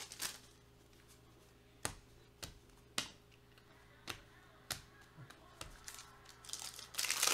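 Trading cards being tapped and laid down on a tabletop, a handful of sharp separate clicks about half a second to a second apart. Near the end a foil card pack crinkles as it is picked up.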